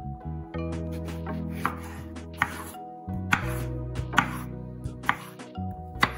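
Santoku knife cutting through eggplant and knocking on a bamboo cutting board: about ten irregular chops, roughly one every half second to a second, over steady background music.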